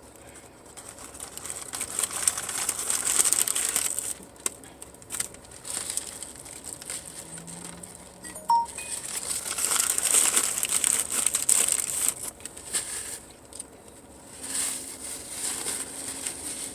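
Food wrapper crinkling and rustling in two longer swells, with scattered light clicks.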